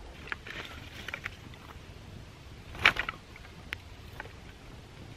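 Sticks clicking and knocking together as they are stacked by hand onto a small, smoking campfire. Scattered small cracks in the first second or so, then one loud knock about three seconds in, then a few lighter clicks.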